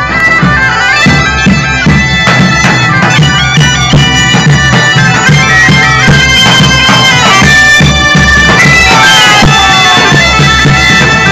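Bagpipes with a steady drone playing a medieval-style tune together with other reed pipes, over a beating rope-tensioned drum.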